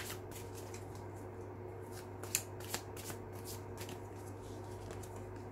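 A deck of Gilded Tarot cards being shuffled by hand: a quick run of soft card snaps and slides that thins out after about three and a half seconds.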